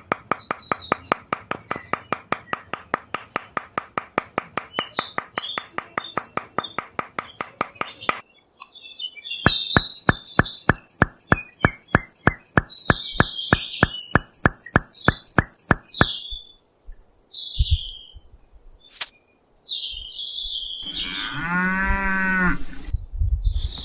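Steady rhythmic clicking, a few clicks a second, with birds chirping above it; the clicking stops about two-thirds of the way through. Near the end a cow moos once.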